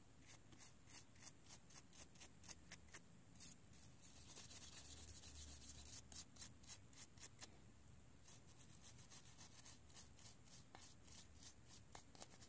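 Small brush scrubbing the metal shield plate of an iPhone 6 display assembly: faint, short bristly strokes at about three or four a second, with a stretch of steady continuous scrubbing around the middle.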